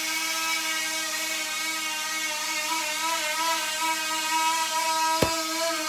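A small electric motor whirring at a steady pitch, wavering slightly, with one sharp knock about five seconds in.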